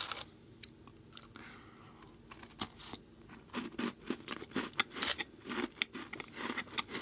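Close-miked eating of a dry, hard cookie: fairly quiet at first, then from about two and a half seconds in, a run of crisp crunching bites and chews.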